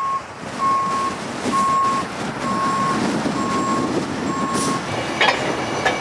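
Heavy semi-truck wrecker tow truck reversing, its backup alarm beeping at one pitch about once a second over the running diesel engine. The beeping stops near the end, around a short hiss.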